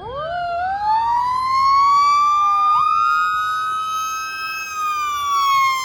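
Fire engine sirens: one winds up in a rising wail and holds high, while a second siren tone dips and jumps back up about halfway through; both fall slowly near the end.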